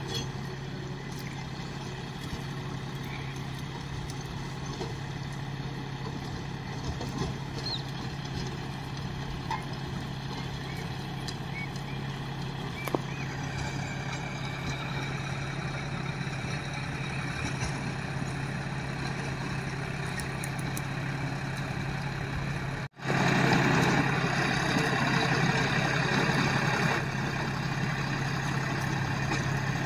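John Deere 5050 tractor's three-cylinder diesel engine running steadily as it drives across the field with a rotavator mounted behind. It drops out for an instant about three-quarters of the way through and comes back louder.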